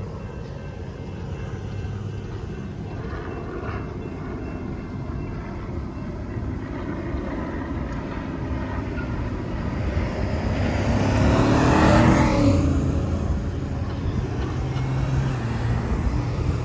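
Road traffic with a steady low engine rumble. One vehicle passes close, swelling to a peak about twelve seconds in and fading as it goes, its tyre and engine noise dropping in pitch.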